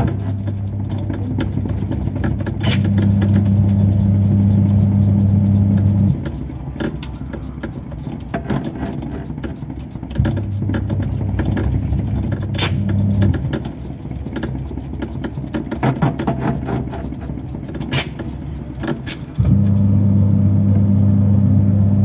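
Top-load washing machine running underneath its tub. An electric motor hum comes on for spells of a few seconds and cuts out in between: for about the first six seconds, again from about ten to thirteen seconds in, and again near the end. Sharp clicks and knocks are scattered throughout.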